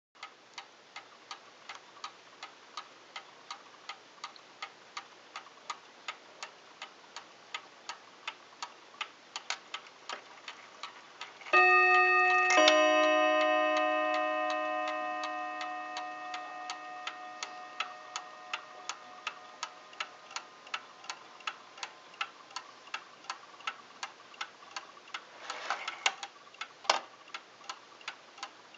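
Antique New Haven "Harmonic" chime clock ticking steadily, a few ticks a second. About twelve seconds in it strikes the half hour once on its double rod chime: a "bim-bam" pair of bell-like tones about a second apart that ring on and fade slowly. A brief noise and a sharp click come from the movement near the end.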